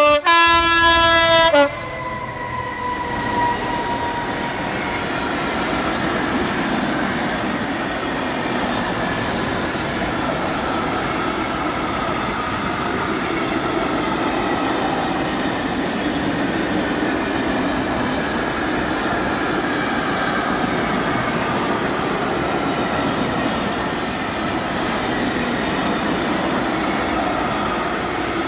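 Class 66 diesel locomotive's horn giving one loud long blast for the first two seconds, the Rp1 'attention' warning signal. The locomotive and a long string of open freight wagons then roll past close by in a steady rumble.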